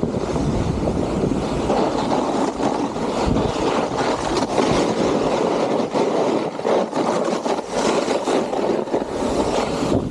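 Wind rushing over an action camera's microphone as a snowboard carves down a firm snow slope, its edge scraping and chattering on the snow in short, uneven rasps.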